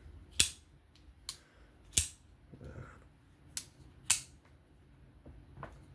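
Vosteed Acorn folding knife being flicked open and shut, its blade snapping into place with about six sharp clicks at uneven intervals as the freshly reassembled action is tested.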